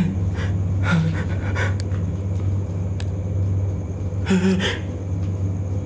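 Steady low rumble, with a few short rustling noises over it, about a second in and again past the middle.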